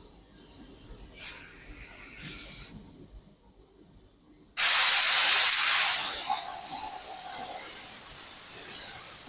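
Hypertherm MaxPro200 plasma torch on a CNC plasma table, oxygen process at 130 amps, on 10 mm mild steel. Gas hisses from the torch at first; about four and a half seconds in the arc fires with a sudden loud hiss, piercing the plate and carrying on cutting.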